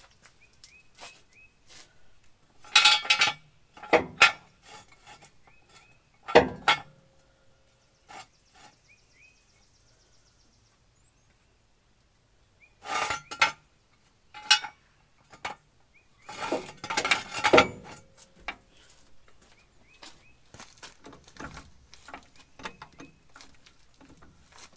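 Metal tools and jacking gear being handled during a wheel change, making irregular clinks and clanks. There are several loud clatters: two close together about three and four seconds in, another a little later, and a longer burst of clanking in the second half.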